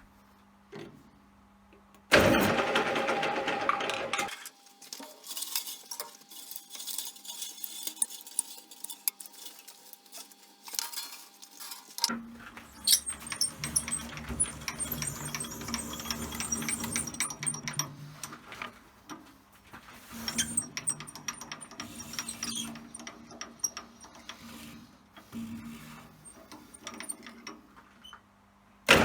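Scattered clicks, knocks and metal clinks of tools and workpiece being handled at a bench metal lathe, with a short loud burst of machine noise about two seconds in.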